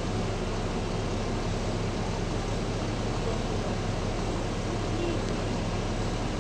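Bus diesel engine idling steadily at a standstill, heard from inside the bus as a constant low hum.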